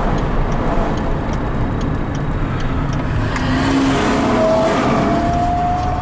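1965 Jaguar 3.8S sedan driving, heard from inside the cabin: its straight-six engine running under a steady rumble of road and tyre noise. A faint regular ticking runs over it, and a thin whine rises slightly through the second half.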